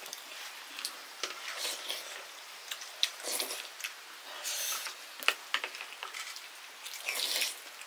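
Food being handled in the kitchen: irregular light clicks and short soft scraping, squishing noises, with a few louder hissy bursts about three, four and a half, and seven seconds in.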